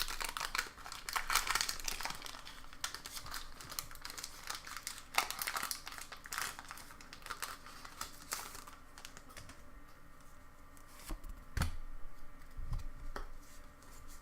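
Foil booster pack wrapper crinkling and tearing as it is opened. After about eight seconds it goes quieter, with a few soft taps of cards being handled.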